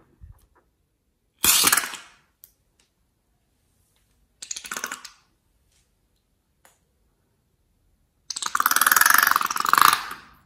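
A long rubber balloon squeezed so that liquid and air sputter out through its neck, in three bursts with the last and longest lasting about two seconds.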